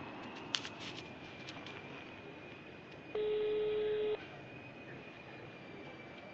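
Ringback tone of an outgoing phone call heard over speakerphone: one steady ring about a second long, a few seconds in, while the call waits to be answered. A few light clicks come just before it.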